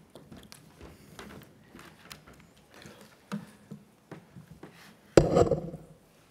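Small clicks and taps from handling a laptop cable and adapter at a lectern, picked up by the lectern microphone. About five seconds in there is one loud thump with a short low rumble.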